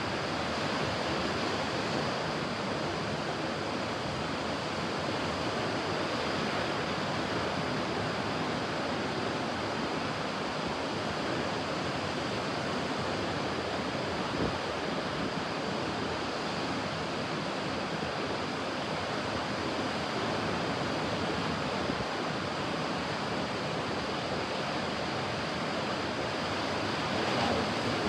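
Ocean surf: a steady wash of breaking waves, an even rushing noise with little rise and fall.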